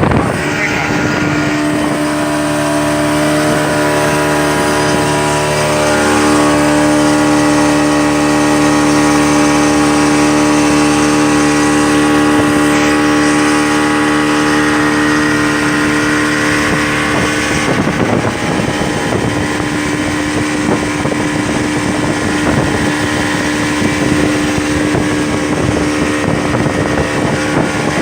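Yamaha 40 hp outboard motor running at a steady speed, driving a boat along. About two thirds of the way through, the even engine note turns rougher and noisier.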